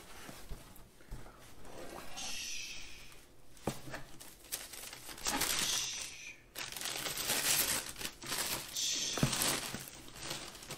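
A cardboard shoebox being opened and the crinkly brown packing paper inside rustled and pulled back, in three separate bursts with a couple of light knocks from the box.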